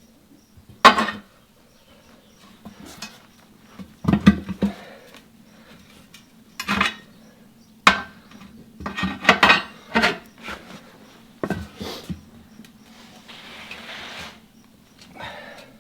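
Steel tire irons clinking and clanking against a steel backhoe wheel rim as the tire bead is levered over it: about a dozen irregular, sharp metal strikes. A brief soft rustling hiss comes about thirteen seconds in.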